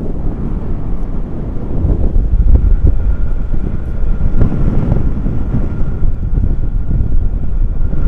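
Wind buffeting the microphone, a loud steady rumble with gusts, plus a faint steady high tone.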